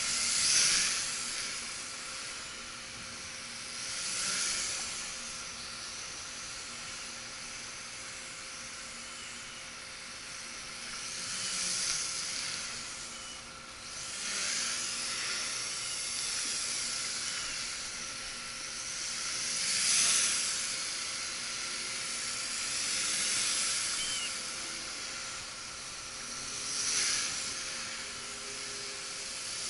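Small home-built quadcopter in flight, its propellers and motors giving a high, airy hiss. The hiss swells louder several times as the drone passes close and fades as it moves away.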